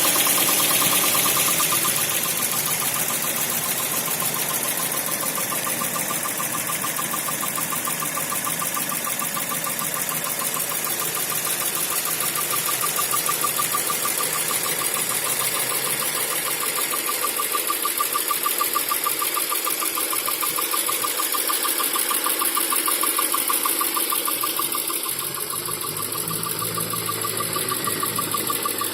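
Toyota 4A-GE 16-valve four-cylinder engine running with a fast, even metallic ticking over the engine noise. The owner says the ticking comes on when the engine is hot, together with jerking and a failure to rev past 3000 to 4000 rpm; the cause is not known.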